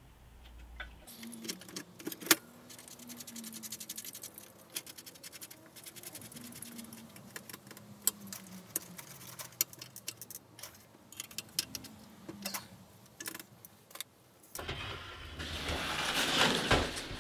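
Small metal assembly hardware clinking and ticking as it is handled and fastened into a hardwood workbench frame: a quick run of fine ticks early on, a sharp click about two seconds in, then scattered clicks. Near the end, a louder rising rushing scrape as the wooden frame is lifted and turned over.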